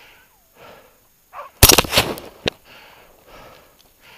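A single rifle shot about a second and a half in, loud and sudden with a short ringing tail, and a second, sharper crack just under a second later. Before and after it the hunter's faint breathing.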